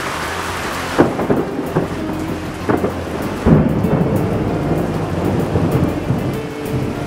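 Steady rain with thunder: sudden claps about one second and three and a half seconds in, the second followed by low rumbling.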